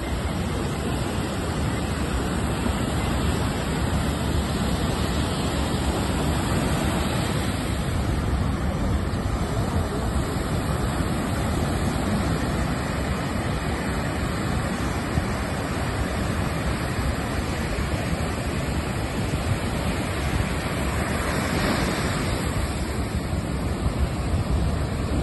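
Sea surf breaking continuously on a sandy shore and rocks, a steady wash of noise with wind buffeting the microphone; one wave crashes louder near the end.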